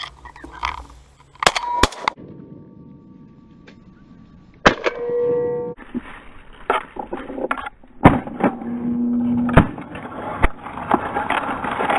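Shotgun blasts going off at intervals during a duck shoot, several of them very loud, with reeds rustling against the gun between the shots. A few short steady tones sound between the blasts.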